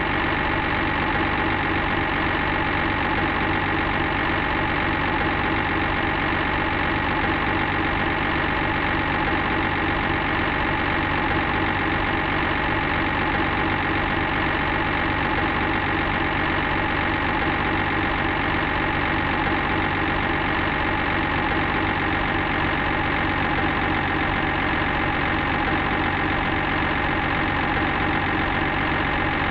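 Construction vehicle's engine idling steadily at an even level, with no change in pitch or loudness.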